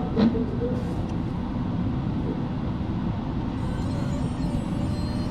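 Steady low rumbling background noise, with one sharp knock just after the start and a couple of faint ticks within the first second.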